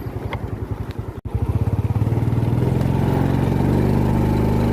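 Motorbike engine running while riding, with a pulsing low note. The sound cuts out for an instant about a second in, then the engine comes back steadier and louder.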